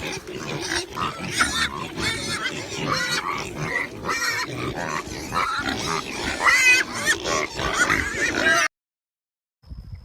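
Several pigs grunting and squealing over one another, a dense chorus of overlapping calls that cuts off abruptly near the end.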